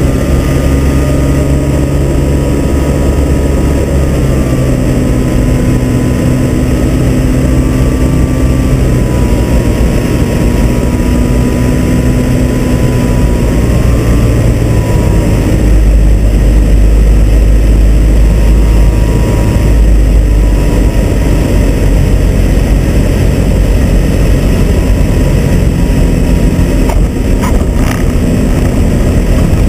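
Avid Flyer light aircraft's engine and propeller running, heard from the cockpit over the rush of wind, on approach and landing; the engine note shifts a few times as power changes. A heavier low rumble comes in about halfway, and a few sharp knocks sound near the end.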